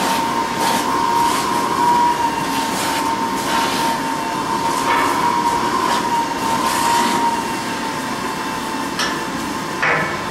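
A steady mechanical hum with a high, slightly wavering whine, over which come soft brush strokes on a horse's mane and coat.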